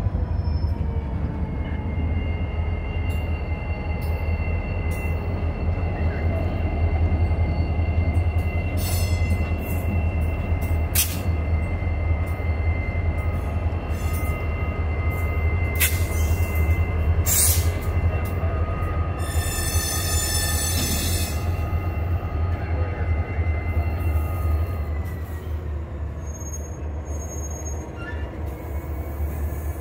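Norfolk Southern EMD SD40-2 diesel locomotives moving past at close range, their 16-cylinder two-stroke engines running with a steady low rumble. Over this are a steady high-pitched squeal from the moving train, a few sharp clicks, and a short burst of hiss about twenty seconds in. The sound eases off a little near the end as the locomotives pull away.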